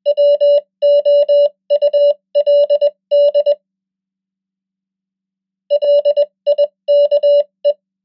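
Morse code beeps, a steady tone of about 600 Hz keyed in dots and dashes at 20 words per minute, spelling the word "would" and then, after a pause of about two seconds, the word "like".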